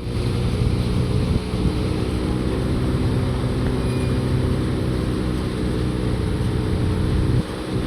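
A machine running steadily with a low droning hum, briefly dipping near the end.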